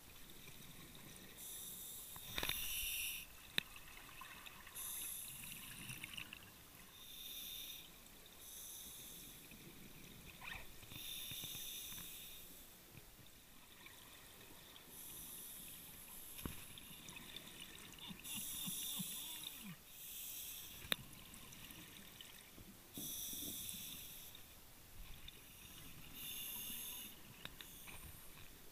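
Scuba divers breathing through their regulators underwater. A bubbly hiss of exhaled air comes every few seconds, with a few sharp clicks.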